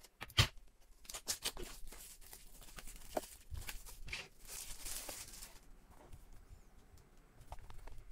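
Clear plastic shrink wrap being peeled and pulled off a cardboard box, a run of crinkling and tearing that is loudest about four to five seconds in, then quieter handling of the box. Just under half a second in comes a single sharp knock as a pair of scissors is set down on the desk.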